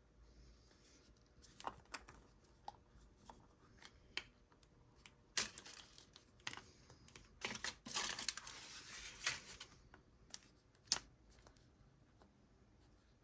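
A toy surprise egg's packaging being handled and opened: scattered small clicks and taps, with about two seconds of tearing and crinkling wrapper a little past the middle and a sharp click near the end.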